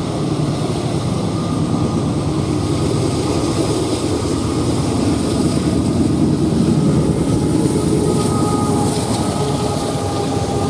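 CSX freight train led by GE AC44CW diesel-electric locomotives passing close under power, a loud, steady diesel rumble.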